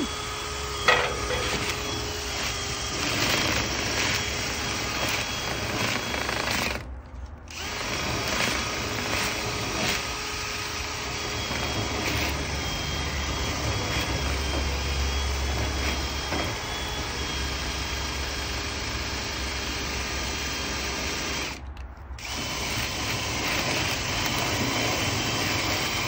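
Cordless drill spinning a rotary brush rod inside a dryer vent duct: a steady whir with the brush scrubbing along the duct. It breaks off briefly twice, about seven and twenty-two seconds in.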